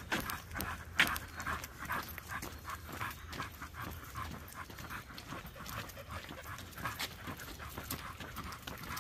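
A dog panting in quick, rhythmic breaths while walking on a leash, with footsteps on the paved path and a sharp tap about a second in.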